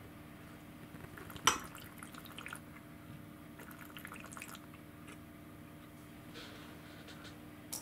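A sharp glass clink about one and a half seconds in, then small clicks and light liquid sounds of a wine glass being handled and sipped from, over a faint steady hum.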